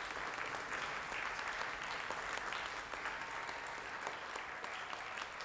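Live studio audience applauding steadily.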